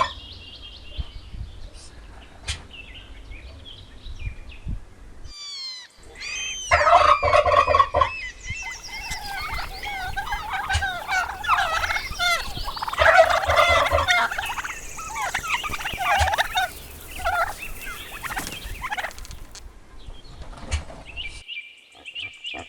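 Turkeys gobbling: one loud rattling gobble about seven seconds in, then many overlapping gobbles and calls from a flock for about twelve seconds.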